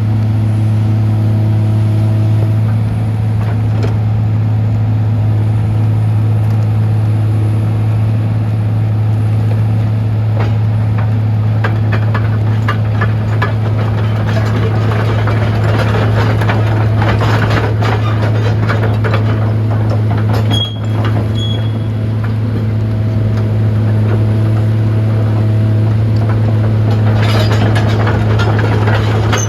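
Diesel engine of a Komatsu PC240LC-8 tracked excavator running at a steady speed with a low, even hum. Through the middle and again near the end, a spell of rattling and clicking rides over the engine.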